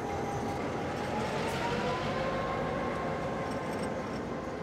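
Diesel locomotive hauling a passenger train as it pulls away from the station platform, its engine running under power over a steady rumble of the train moving. A faint engine tone rises a little about a second in, then holds steady.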